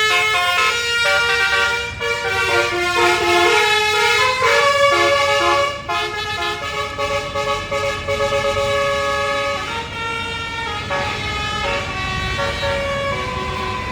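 Bus's multi-tone Basuri 'telolet' air horn playing a tune: steady overlapping notes changing pitch in steps, over low engine and traffic rumble, growing a little weaker in the last few seconds.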